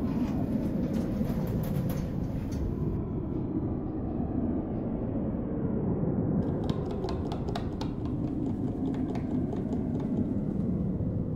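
Low steady rumble inside a lift car, with a quick run of clicks from its push-buttons being pressed about seven seconds in.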